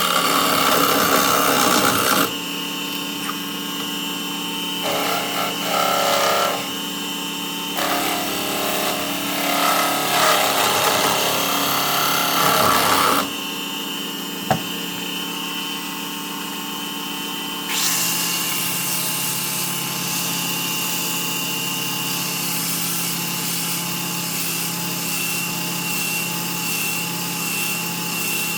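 Wood lathe running with a steady motor whine while a turning tool cuts the spinning wood, the cutting noise coming and going in several stretches; in the second half it settles into a steadier hiss of tool on wood.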